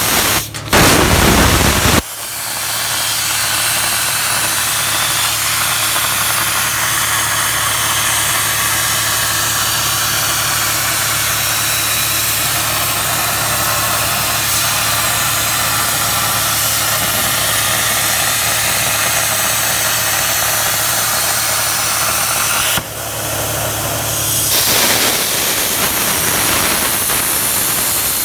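CNC plasma cutter cutting steel plate: a loud, steady hiss of the arc and its air stream with a low hum underneath. A louder burst comes in the first two seconds, and the sound breaks about 23 seconds in before a further stretch of hiss.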